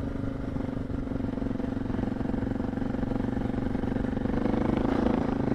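Suzuki DR650's single-cylinder engine running steadily as the bike climbs a mountain trail, the revs and loudness rising a little near the end.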